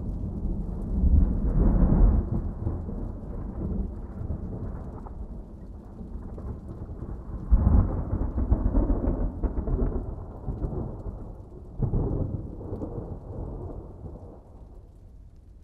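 Thunderstorm: rolling thunder rumbling over rain. Loud peals come about a second in, halfway through with a sharp crack, and again about three-quarters through, and the sound dies away toward the end.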